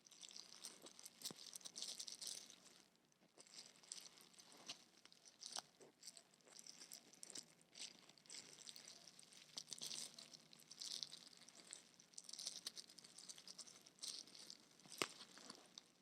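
Makeup packaging being handled and unwrapped close to the microphone: soft irregular crinkling and rustling, with a few small sharp clicks and taps.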